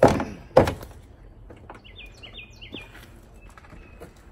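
Two sharp hammer blows on a truck door's hinge pin, about half a second apart, as the old pin is driven out. A small bird chirps several times a couple of seconds later.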